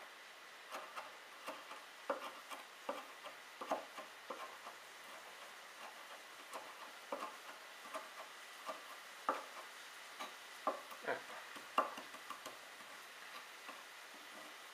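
Santoku kitchen knife mincing parsley on a wooden cutting board: the very sharp, semi-rounded blade rocks and taps on the board in irregular clicks, two or three a second.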